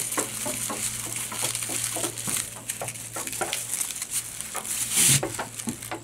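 Dry onion tops and papery onion skins rustling and crackling as they are twisted into a braid, with a louder crunch about five seconds in.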